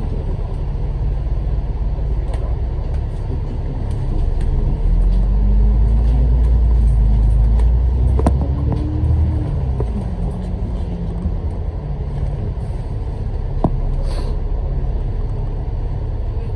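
Bus engine and drivetrain rumbling as heard on board a moving bus. About five seconds in the rumble grows louder and the engine note climbs as the bus accelerates, then falls away a few seconds later. There are a couple of sharp clicks.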